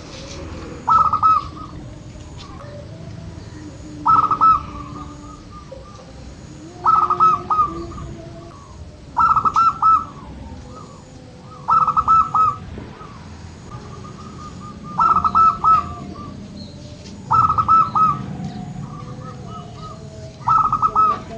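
Zebra dove (perkutut) cooing its song: a short, quick run of notes repeated about every three seconds, eight phrases in all. Faint chirps of other birds sound between the phrases.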